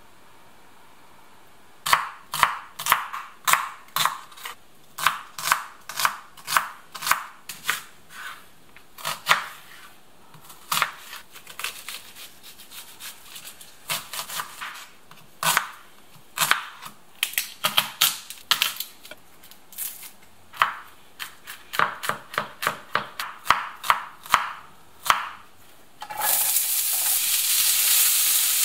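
A chef's knife chopping on a wooden cutting board, dicing onion in quick runs of strokes with short pauses. About 26 seconds in, a sudden, steady frying sizzle starts as diced onion is stirred in a hot pan.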